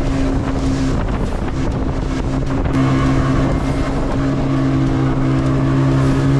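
Tour boat's engine droning steadily at speed, with the rush of water along the hull and wind on the microphone. The engine hum thins out about a second in and comes back strongly a couple of seconds later.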